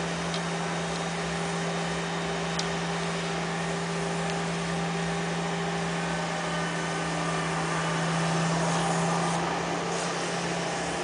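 Steady low hum, like a motor running, over a constant background hiss, swelling slightly about eight seconds in, with a few faint ticks.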